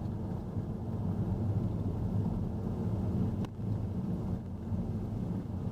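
Car cabin noise while driving slowly: a steady low engine and tyre rumble, with a single sharp click about three and a half seconds in.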